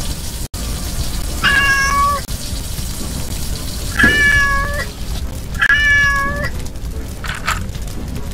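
A kitten meowing three times, each meow about a second long, over a steady low rumble.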